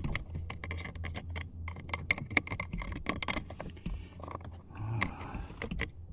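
Irregular light clicks, taps and rattles of hard parts being handled as a pickup's door panel and its wiring connectors are worked on, over a faint steady low hum.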